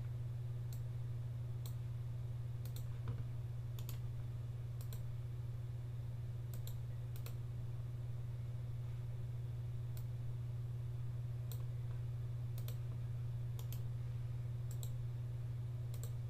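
Single computer mouse clicks, spaced roughly a second apart with a few longer gaps, over a steady low hum.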